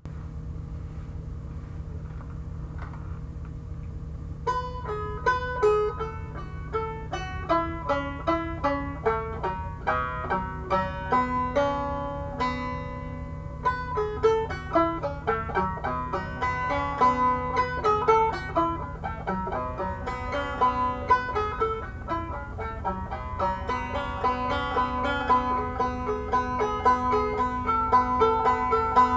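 Solo banjo playing an old-time blues tune in a quick run of plucked notes, which start about four and a half seconds in. A steady low hum runs underneath.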